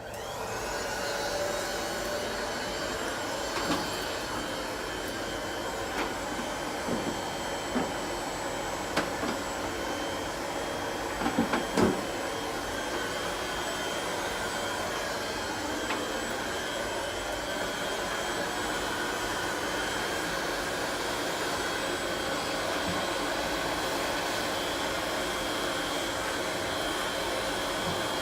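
Electric heat gun switched on and running steadily, a steady rush of air with a faint high whine. A few light knocks sound over it during the first half.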